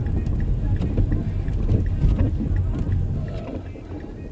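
Car driving, heard from inside the cabin: a steady low rumble of road and engine noise that dies down after about three seconds.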